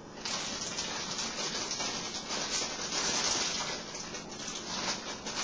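Water running steadily in a hissing stream, starting abruptly and dying away near the end.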